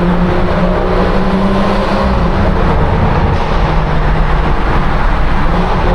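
BMW 340i's tuned turbocharged 3.0-litre straight-six under full throttle, its valved exhaust loud and steady, echoing inside a road tunnel.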